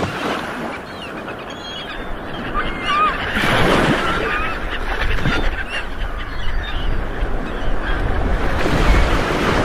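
Seaside ambience: many birds calling in short chirps over the wash of waves, with a swell of surf about three and a half seconds in and wind rumbling on the microphone toward the end.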